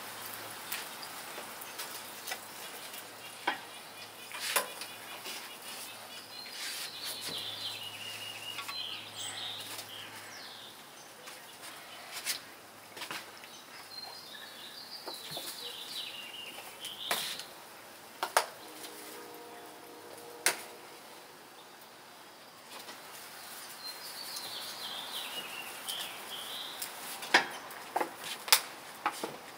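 Meat sizzling on a grill with scattered sharp clinks and taps of metal grilling utensils, the loudest of them near the end. A bird sings three short warbling phrases.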